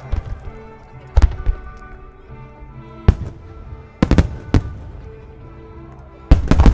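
Aerial firework shells bursting in a string of sharp bangs, with several close together about four seconds in and the loudest near the end, over music that plays throughout.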